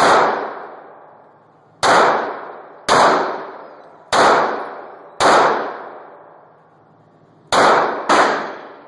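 Seven shots from a Smith & Wesson M&P 40 pistol in .40 S&W, fired roughly a second apart with a quicker pair near the end, each echoing away.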